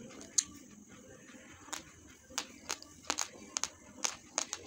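Uncooked basmati rice grains being chewed: a run of sharp, irregular crunches, few at first and then several a second in the second half.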